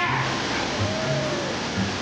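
Steady rush of a waterfall, with background music carrying a low, rhythmic bass line over it.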